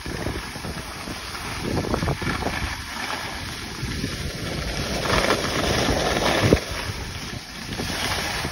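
Wind buffeting the microphone while skiing, with skis scraping and hissing over packed snow. The hiss swells louder past the middle and ends in a sharp knock about six and a half seconds in.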